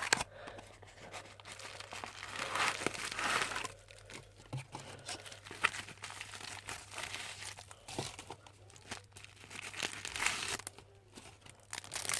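Packaging crinkling and tearing as a replacement phone screen is unwrapped, with irregular rustling swells and scattered sharp clicks.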